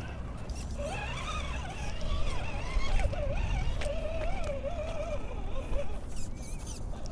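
A 1/10-scale RC rock crawler's electric motor and gears whining as it creeps over boulders, the pitch wavering up and down as the throttle is worked, with a couple of light knocks from the chassis and tyres on rock. A low rumble of wind sits under it.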